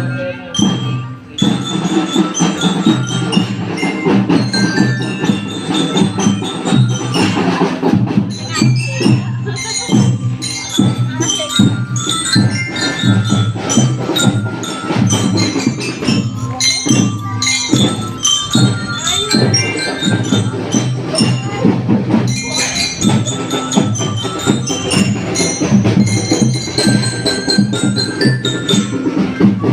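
Music led by metallic mallet percussion with bell-like notes, over drums and knocking percussion, playing continuously with a steady beat.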